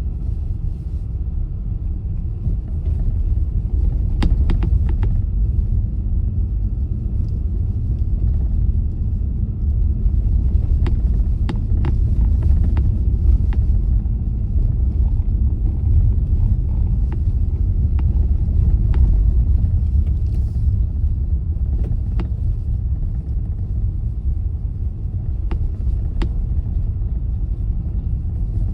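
Car driving, a steady low rumble of engine and tyres on the road, with scattered sharp clicks now and then.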